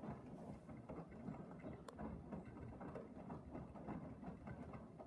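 Blomberg front-loading washing machine in its main wash, the drum turning a load of wet blankets through soapy water: faint, irregular sloshing and swishing, with one sharp click a little under two seconds in.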